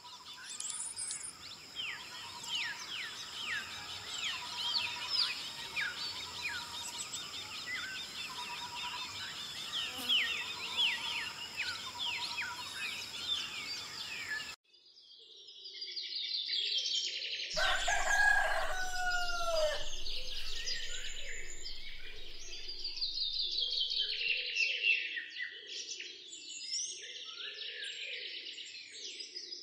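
Many birds chirping and whistling at once in a dense chorus, with quick falling whistles, over a faint steady high ringing. About halfway through the sound cuts out abruptly and fades back in, followed by a loud, falling, crowing call lasting about two seconds and then more birdsong.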